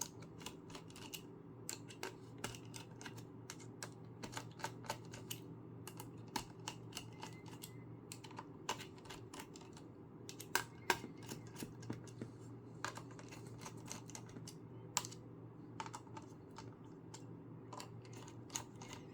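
Irregular small clicks and ticks of a screwdriver working the CPU heatsink's screws on a laptop motherboard, over a faint steady hum.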